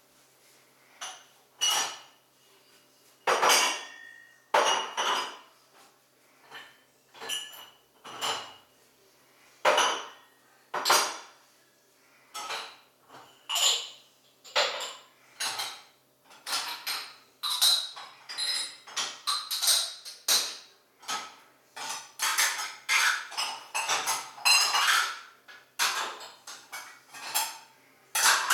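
Irregular clinking and clattering of hard objects, some knocks with a brief ringing tone. The knocks are spaced about a second apart at first and come thicker and faster through the second half.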